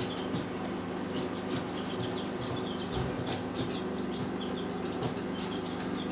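Poultry chicks cheeping in many short high notes over a steady low machine hum, with scattered clicks.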